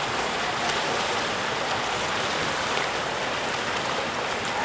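Steady splashing and churning of pool water as water polo players swim hard up the pool.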